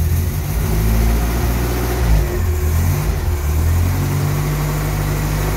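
Ford Maverick four-cylinder petrol engine in a Jeep Willys, running with the hood open. It is blipped up and down in pitch a few times, then settles to a steady idle about four seconds in.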